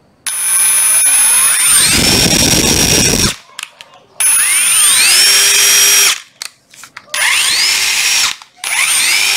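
Hitachi WH18DDL2 18 V brushless cordless impact driver run with no load: the trigger is pulled four times, and each time the motor's whine rises quickly to a steady high pitch. The first run rattles loudly for its last second or so.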